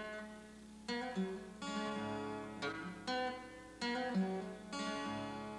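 Acoustic guitar music: plucked chords ring out and fade, a new chord every half second to a second.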